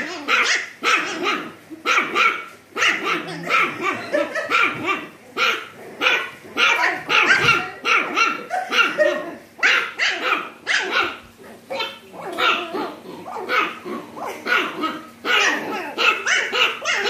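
Puppies barking over a shared food bowl, short barks following one another without pause: a squabble over food.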